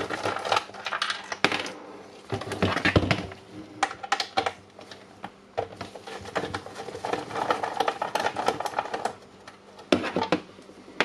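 A cordless DeWalt nail gun's plastic housing handled on a workbench while its back cover is taken off: irregular clicks, taps and knocks, with a louder clatter about two to three seconds in and again near the end.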